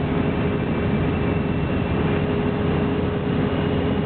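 Light aircraft's piston engine and rushing air heard from inside the cockpit, steady, with a constant whine, on short final approach to a grass runway.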